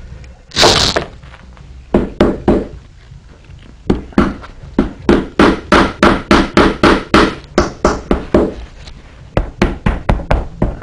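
A hammer tapping a shingle nail into a saddle tree through wet saddle-skirt leather, in quick runs of light blows about four a second. A short scraping sound comes about half a second in.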